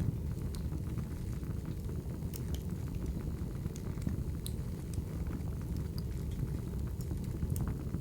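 Crackling wood fire: a steady low rumble of burning logs with scattered sharp pops and snaps.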